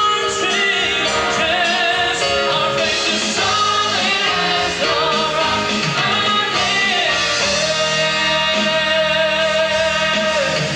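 A song with a voice singing long, wavering held notes over instrumental backing.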